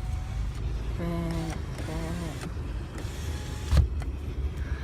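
Low, steady rumble of a car driving, heard from inside the cabin. Two short, faint tones come about one and two seconds in, and a single thump sounds a little before the end.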